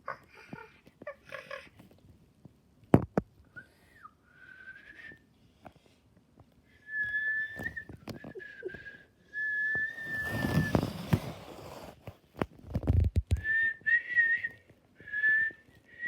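A person whistling a series of short, high, held notes, each about half a second to a second long. A burst of noise comes near the middle.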